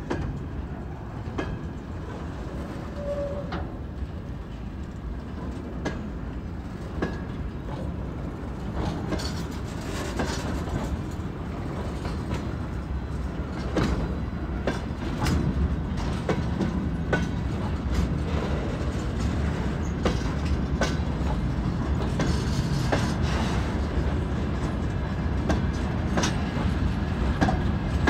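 Freight train of open gondola wagons rolling past close by: the wheels click over rail joints above a steady low rumble, getting louder from about halfway through.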